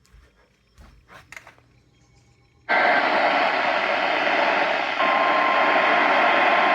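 Radio static: a loud, steady hiss switches on suddenly about two and a half seconds in, after a few faint clicks, and a faint steady tone joins it about two seconds later.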